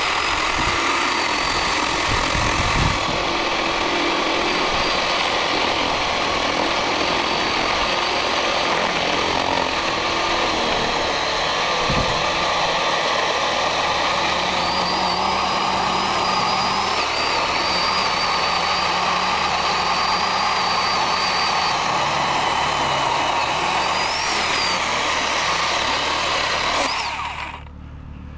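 Battery-powered chainsaw running steadily as it makes the first cuts into a tree trunk, stopping near the end.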